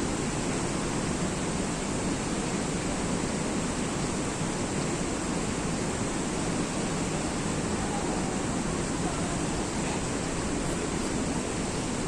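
Steady rush of water pouring down a waterfall, an even, unbroken roar.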